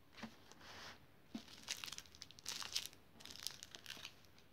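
Small plastic bags of diamond painting drills faintly crinkling and rustling as they are handled and sorted by hand, in short scattered bursts.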